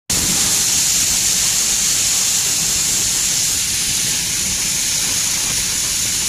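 Coil roofing nail making machinery running: a steady loud hiss over a low rumble.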